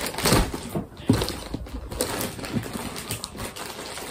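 Plastic courier mailer bag crinkling and rustling in irregular crackles as it is turned over in the hands and picked at to open it.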